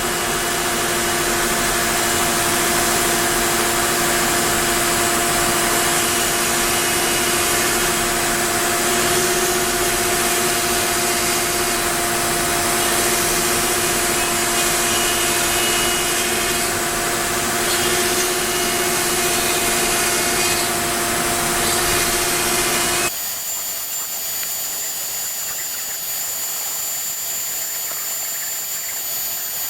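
Onefinity wood CNC router cutting wood: a loud, steady machine whine over the noise of the bit working through the board. About 23 seconds in, the cutting noise drops away suddenly, leaving a quieter, steady high-pitched hum.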